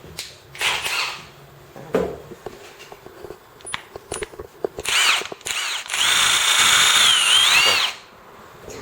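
Milwaukee M18 Fuel 2754 3/8-inch drive cordless impact wrench run in pulls of the trigger. There is a short spin about half a second in, another around five seconds, then a two-second run near the end whose motor whine holds steady, dips and comes back up as the trigger is eased and squeezed again.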